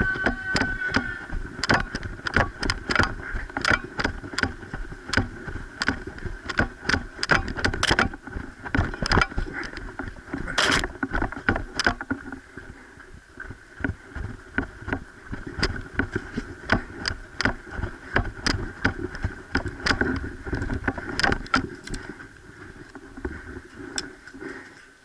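Airsoft guns firing during a game: many sharp, irregular pops and clicks, with BBs striking surfaces, over a steady hum.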